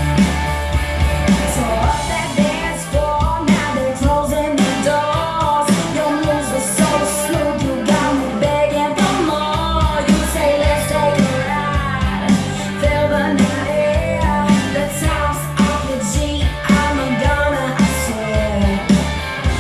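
A pop-rock song with a woman singing, played through Bose S1 Pro speakers with two Bose B1 subwoofers carrying the bass below 100 Hz.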